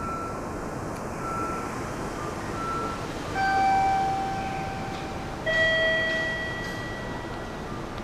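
Station concourse hum with three short, faint beeps about a second apart. They are followed by a two-note descending electronic chime whose tones ring and fade, like a station chime.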